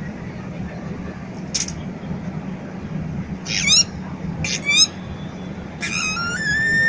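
Steady murmur of a street crowd. Over it come two short, high squeaks that rise in pitch, then a longer high squeal that steps up in pitch and holds for about a second near the end.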